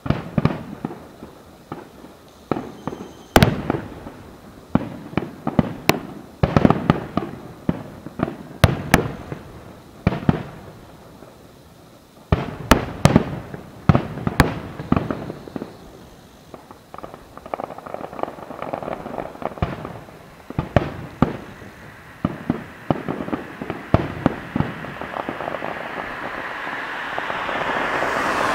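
Aerial fireworks shells bursting overhead in a rapid series of sharp bangs, many coming in close clusters. Near the end a swelling hiss builds up.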